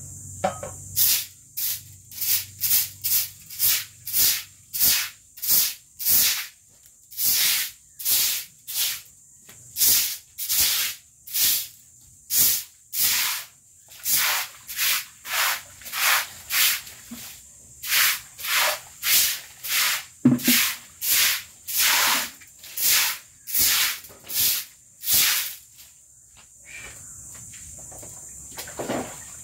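Broom sweeping a wet concrete floor in quick, regular swishing strokes, about one and a half to two a second. The strokes stop near the end.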